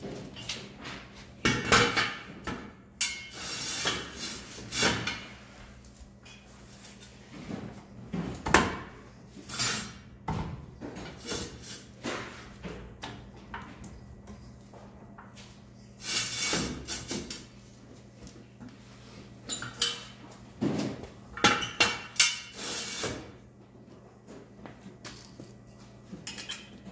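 Irregular metal clanks and clatter of a hydraulic floor jack being worked and steel jack stands being set under a side-by-side's front suspension arm, in clusters of sharp knocks.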